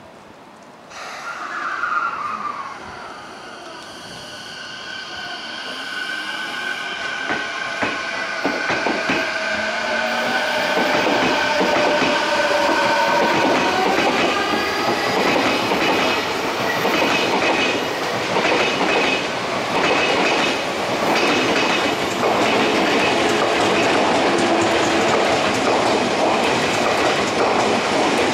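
Odakyu electric commuter train moving through the station: a short falling tone about two seconds in, then a motor whine of several steady pitches that builds for several seconds into loud, steady wheel clatter on the rails.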